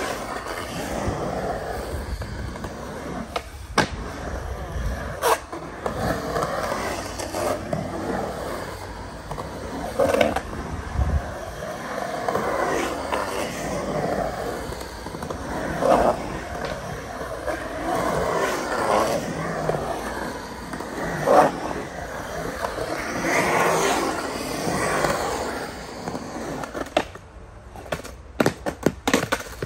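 Skateboard wheels rolling and carving around the walls of a concrete skate pool, the rumble swelling and fading every couple of seconds as the rider pumps through the transitions. Sharp clacks of the board are heard now and then, with several quick ones near the end.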